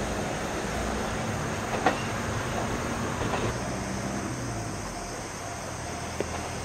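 A JR Kyushu KiHa 47 diesel railcar runs along the line with a steady low engine drone and track noise, fading out about halfway through. There is a sharp click about two seconds in.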